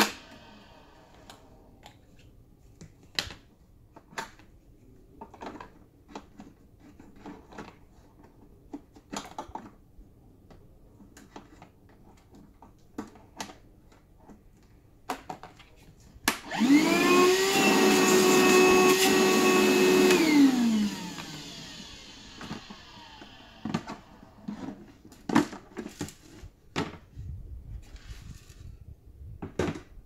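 DeWalt DCV580N cordless wet/dry vacuum: clicks and knocks as the unit and its hose are handled, then about halfway through the motor starts, whines up to speed, runs steadily for about four seconds and winds down once switched off. Further clicks and thunks follow as the unit is opened.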